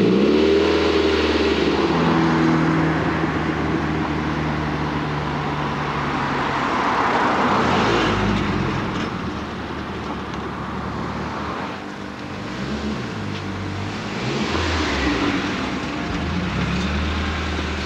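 Mercedes 190E project car's engine running just after starting. It idles steadily at first, then the revs rise and fall a few times in the second half.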